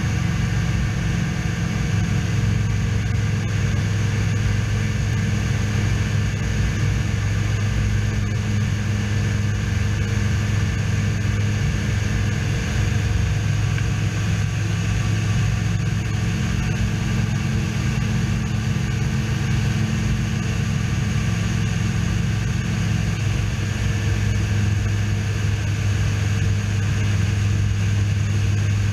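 SeaRey amphibian's engine running steadily in flight, an unbroken drone with a strong low hum.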